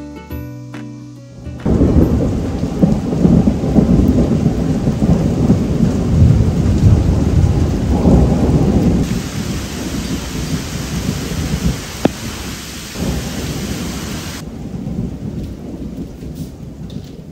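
Thunder rumbling long and low over heavy rain, starting suddenly about two seconds in. The rain's hiss grows brighter about halfway through, then cuts off abruptly near the end, leaving the rumble fading.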